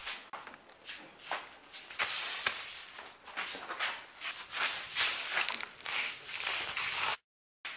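Feet scuffling and scraping on a gritty concrete floor as two men grapple over a bag, with irregular shuffles and light knocks. The sound cuts out suddenly for about half a second near the end.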